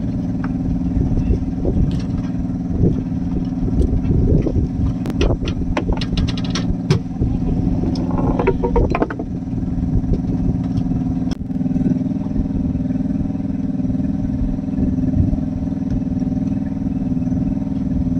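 An engine on a fishing boat running steadily, with a scattering of clicks and knocks in the middle. About eleven seconds in, the engine's pitch steps up slightly.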